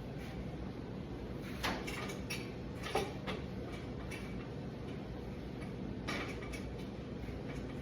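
A few light clicks and knocks of cookware and utensils being handled, the loudest about three seconds in, over a steady kitchen background hum.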